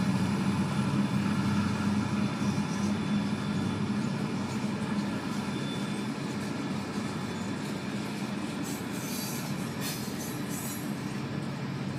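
Florida East Coast Railway freight cars rolling past over a road crossing, heard from inside a car: a steady rumble that slowly fades, with a few short high wheel screeches near the end.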